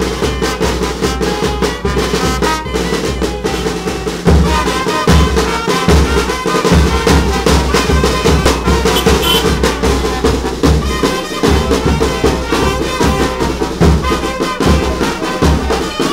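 A small street band of saxophones, trumpet, bass drum and hand drum playing a lively tune with a steady beat; the drums and brass get louder about four seconds in.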